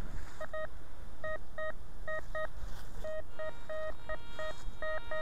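Metal detector beeping as its coil sweeps over the ground: short mid-pitched beeps, singly and in quick pairs, coming more often and with a few longer tones in the second half. Each beep signals metal under the coil.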